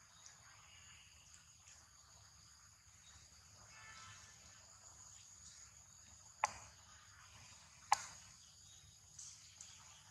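Faint, steady, high-pitched insect chirring, with two sharp clicks about a second and a half apart in the second half.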